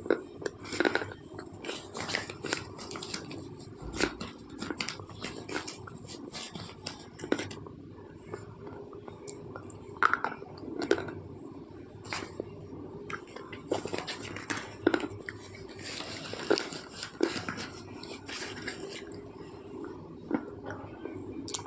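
Close-miked wet mouth sounds, ASMR style: an irregular stream of short saliva clicks, smacks and droplet-like pops, several a second.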